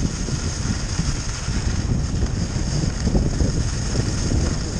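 Wind buffeting a head-mounted action camera's microphone as the skier descends at speed, a loud, steady, fluttering rush.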